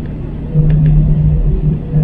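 Airbus A319 cabin noise during taxi: a steady low engine drone that steps up in loudness about half a second in, with a couple of short dips.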